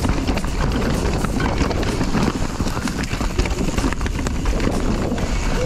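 Mountain bike descending a rough dirt trail: tyres rumbling over the ground, with frequent small knocks and rattles from the bike, and wind buffeting the camera's microphone.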